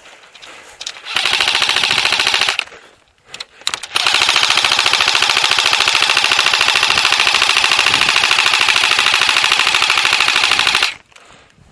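Airsoft electric rifle firing on full auto, close by: a short burst of about a second and a half, a couple of single shots, then a long sustained burst of about seven seconds that stops abruptly near the end.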